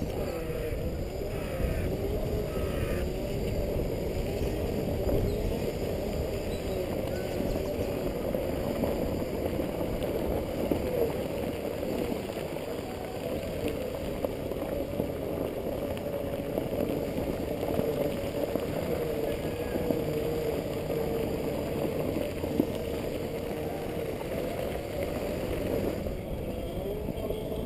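Segway personal transporter's electric drive motors whining as it rides along, the pitch wavering up and down with speed, over a steady low rumble.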